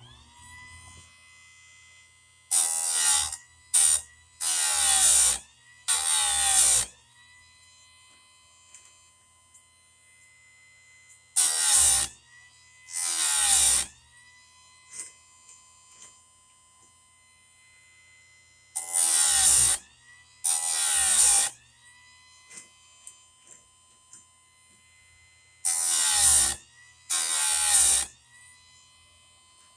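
Electric chainsaw-chain grinder running with a steady motor whine while its grinding wheel is brought down on one cutter tooth after another: about ten short grinds of roughly a second each, four in quick succession and then in pairs, each pulling the whine down before it climbs back up to speed. This is the chain being sharpened at a 25-degree angle, tooth by tooth.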